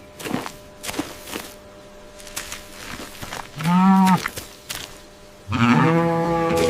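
Cow mooing twice: a short call that rises and falls about four seconds in, then a longer, steady moo starting near the end. A few sharp clicks come before the calls.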